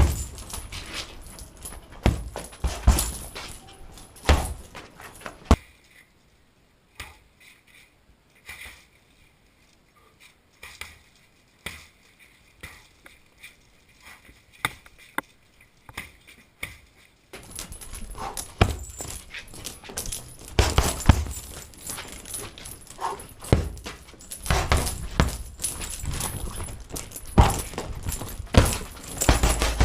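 Gloved strikes landing on a punching bag: irregular thuds, some in quick flurries, with a metallic jingling. From about 6 to 17 seconds in the strikes are fewer and fainter.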